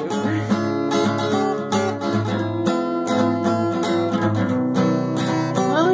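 Steel-string acoustic guitar being strummed, with rhythmic chords ringing on steadily.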